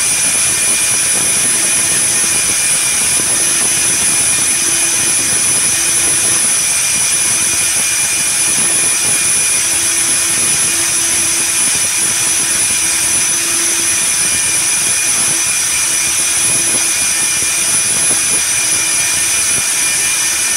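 Hilti rig-mounted diamond core drill running steadily as its core bit cuts down into a wet concrete floor, a loud high-pitched motor whine with a lower hum coming and going beneath it.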